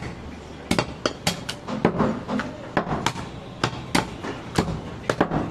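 A heavy butcher's knife chopping through goat meat and bone onto a wooden log block: about a dozen sharp chops at an uneven pace.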